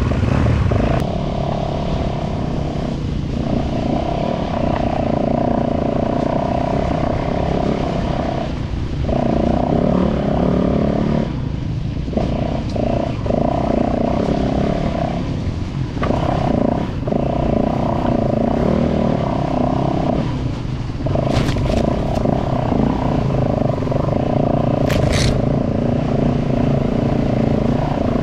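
Off-road trail motorcycle engine running at a steady note, dropping off briefly several times as the throttle is eased. Two short sharp high sounds come near the end.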